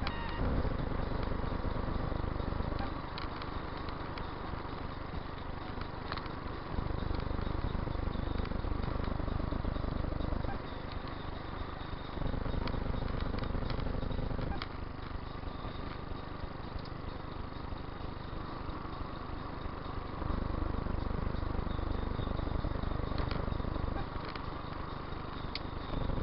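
Car driving, heard from inside the cabin: a steady noise of tyres and engine with a low rumble that swells and eases every few seconds.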